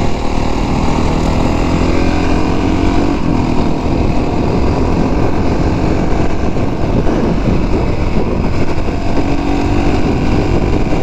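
2017 Honda CRF450R's single-cylinder four-stroke engine running under steady throttle while the bike cruises along a tarmac road, its pitch rising and falling slightly.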